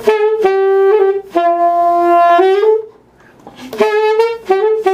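Alto saxophone playing a short phrase of held notes, each ending in a doit, a quick upward slide in pitch off the note. It stops briefly a little before the middle and plays a second phrase.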